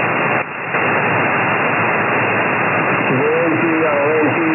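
Shortwave receiver hiss: steady HF band noise through a software defined radio's narrow audio passband, briefly dropping out about half a second in. About three seconds in, an amateur radio operator's voice comes through the noise on single-sideband.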